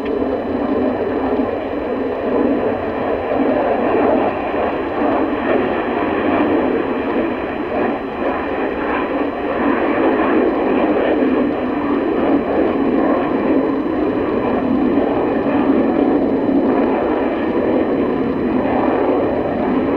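Sukhoi Su-30 fighter's twin turbofan engines heard from the ground during a display flight: a steady rushing jet noise that rises and falls a little.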